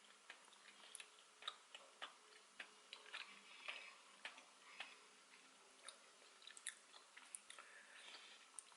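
Faint chewing of Buldak tteokbokki rice cakes: soft, irregular wet mouth clicks and smacks, a few a second.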